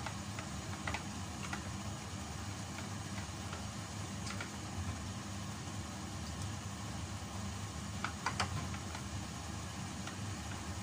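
Soy-and-vinegar adobo sauce simmering around chicken pieces in a stainless pan on a gas burner: scattered small pops and crackles, a few close together about eight seconds in, over a steady low hum.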